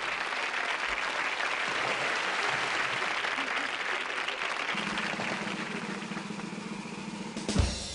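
Audience applauding steadily, with a low hum joining about halfway and one sharp thump near the end.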